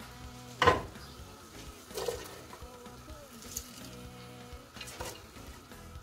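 Shredded cabbage tipped into a metal pot holding a little water: a sharp knock against the pot less than a second in, then softer knocks and rustling a little later, over quiet background music.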